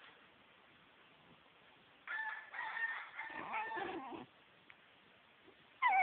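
Small dog 'singing': a high, wavering howl lasting about two seconds, starting about two seconds in. A second howl sliding down in pitch begins near the end.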